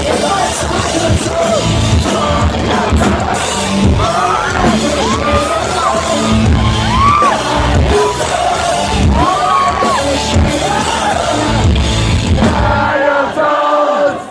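Pop-punk band playing live in a large hall, with a singer's voice over the full band and the crowd yelling. Near the end the bass drops out for about a second before the band comes back in.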